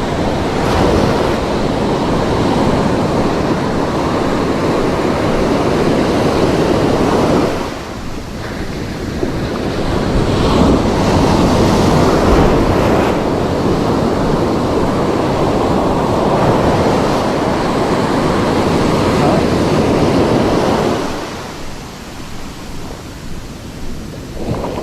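Ocean surf breaking on a beach, a loud, rough wash of noise mixed with wind buffeting the microphone. It eases briefly about eight seconds in and falls away again near the end.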